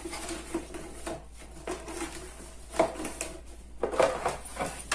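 Plastic Sistema microwave cooker being opened and handled: light clicks and knocks of the plastic lid and container with paper rustling, and a couple of sharper clicks about three and four seconds in.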